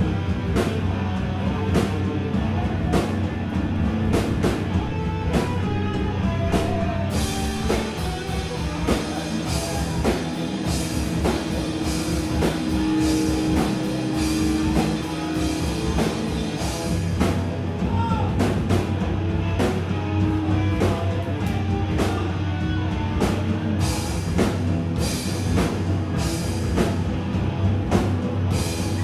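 A rock band playing live: electric guitar and drum kit with keyboard, an instrumental passage with steady drumming, heard from the back of the room.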